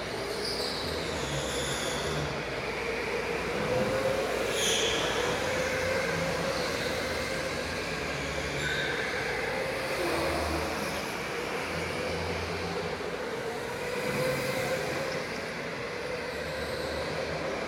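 Indoor electric go-karts racing: a steady motor whine that slowly rises and falls with speed over a constant rolling noise, with several short high tyre squeals.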